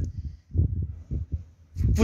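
Soft, low handling thumps from a handheld phone being moved, a few in quick succession, with a man's voice starting again near the end.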